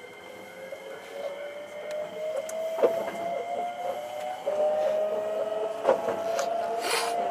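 Hankyu 9300 series electric train's traction motors whining, the pitch rising steadily as the train gathers speed, with a few sharp wheel-on-rail clicks and a short hiss near the end.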